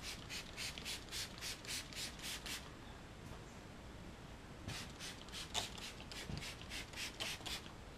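Trigger spray bottle of quick detailer squirting in quick runs of short hissing sprays, about four a second: around ten in the first couple of seconds, a pause of about two seconds, then another ten or so.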